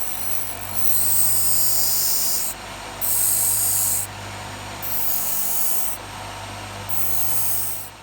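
TIG welding arc from a Hitbox TIG200P AC/DC welder: a steady low buzz with a hissing crackle that swells loud four times and drops back between.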